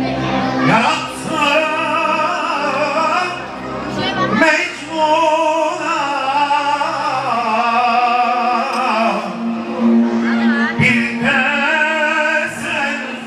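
Music with a singer holding long, wavering notes over a steady low accompaniment.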